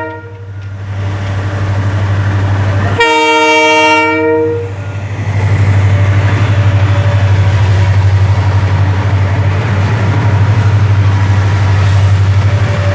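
Diesel locomotive engines running with a steady, pulsing low drone, and a chord horn blown once for about a second and a half, about three seconds in.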